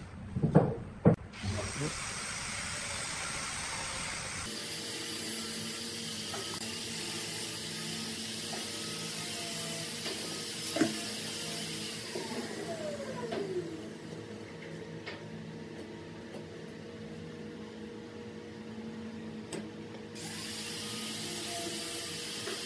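A steady motor-like hum and hiss, with a few wooden knocks in the first second or so as the pine block is handled, then light clicks and scrapes of a pencil and steel rule marking out the block.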